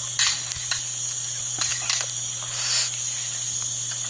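Steady high-pitched chorus of insects, crickets or cicadas, broken by several short rushes of noise, about five in all.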